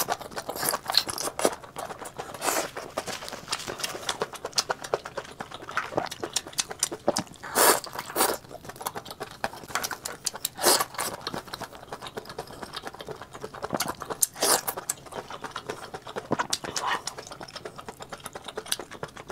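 Close-miked chewing and mouth sounds of a person eating spicy chili-oil squid and enoki mushrooms: irregular short smacks and clicks, with a few louder bites.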